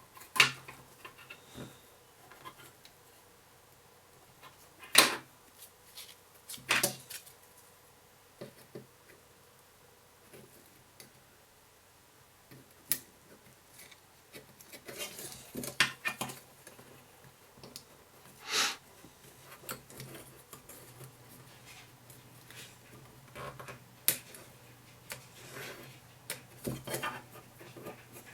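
Hands handling a small quadcopter frame and threading an elastic battery strap through it: scattered clicks, taps and rustles, with several sharp clicks spread through the stretch.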